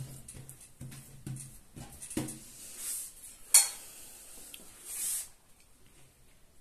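Hands patting and rubbing oil over a sheet of dough on a countertop, a string of soft short taps, then a sharp metal clink of a spoon against a metal bowl about three and a half seconds in, with a few soft swishes as the filling is scooped.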